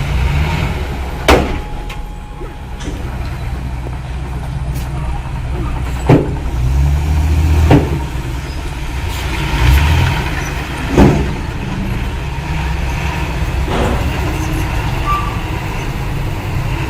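Heavy diesel earthmoving machinery (bulldozer and dump trucks) running with a steady low drone that swells now and then. Five sharp clanks cut across it, the loudest about a second in, around six and eight seconds in, and near eleven seconds.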